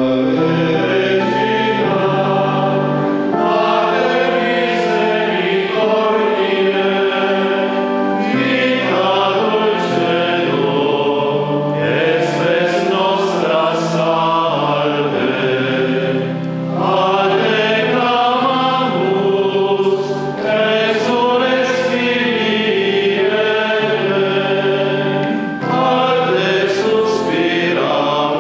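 A choir singing a hymn with several voices over steady held chords, which change every few seconds.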